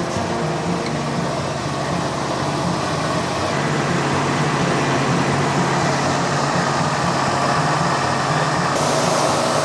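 Engine of a portable band sawmill running steadily while the mill saws a red cedar log.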